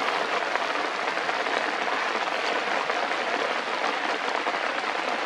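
Water drops falling steadily on forest foliage: a dense, even hiss of many small drops.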